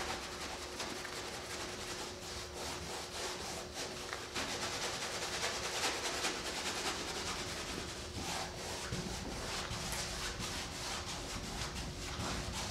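Paintbrush scrubbing rabbit-skin glue size into stretched linen canvas: a rough, hissing rub of quick repeated strokes, louder for a few seconds in the middle.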